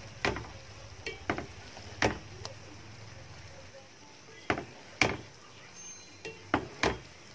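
A spoon or spatula knocking and scraping against a pan while biryani rice and chicken are stirred together: about ten sharp clacks at uneven intervals.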